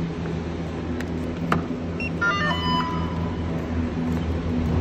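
Steady low hum of a gondola lift's station machinery, with a couple of sharp clicks about a second in and a short high electronic beep about two seconds in.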